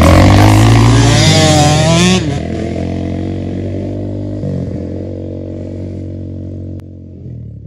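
Off-road motorcycle engine revving loudly at first. It then runs on steadily and grows fainter as the bike rides away down a dirt track.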